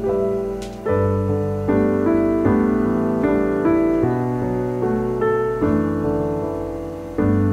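Background piano music: a gentle, slow melody with a new note or chord struck roughly every second and ringing out between strikes.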